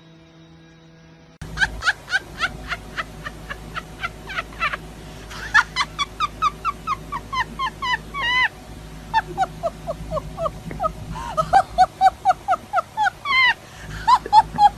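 After a moment of faint hum, a golden retriever whines and grumbles in a long run of short, high squeaky cries, several a second, pausing briefly now and then.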